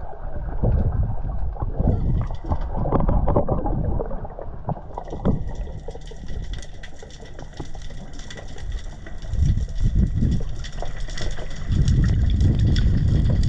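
Water heard through a camera held underwater as a diver goes down: low muffled sloshing and rumbling. From about five seconds in, a fainter high hiss and crackle joins it.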